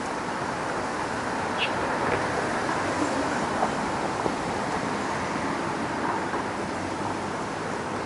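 Steady hum of distant traffic, with a short, faint high chirp about a second and a half in and a few faint ticks.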